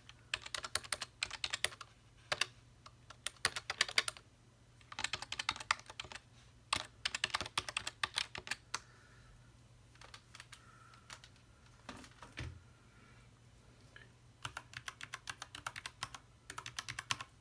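Typing on a keyboard: fast runs of key clicks in bursts with short pauses between them, thinning to a few scattered keystrokes in the middle before a last fast run near the end.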